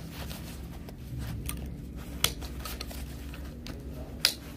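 Rustling of a plastic protective coverall and a life jacket being put on and fastened, with two sharp clicks about two seconds apart, the second the loudest, as of the jacket's buckles snapping shut. A steady low hum runs underneath.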